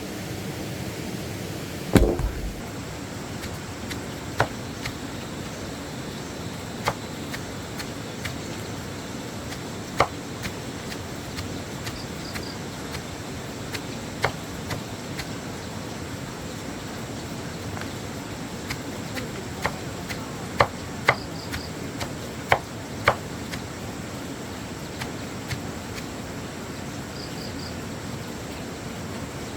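Irregular sharp knocks or strikes, about a dozen spaced over the stretch, the loudest about two seconds in and several close together near two-thirds of the way through, over a steady background hiss.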